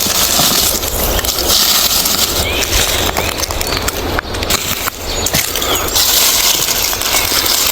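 Footsteps through forest undergrowth, dry leaves and twigs crunching and snapping irregularly, over a steady low rumble and a high hiss.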